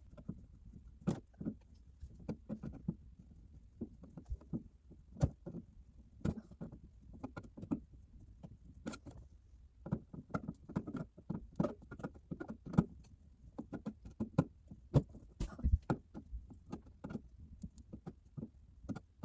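Irregular clicks, knocks and scrapes of screws being worked out of a smoke alarm's mounting base with a screwdriver.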